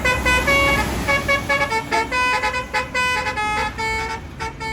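Bus "telolet" musical horn playing a quick tune of short honked notes that jump between pitches, over a low rumble.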